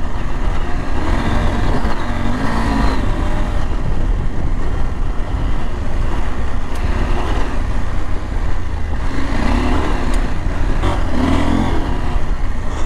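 Husqvarna Norden 901's parallel-twin engine pulling along a dirt road, swelling under throttle twice, over steady low road and wind noise.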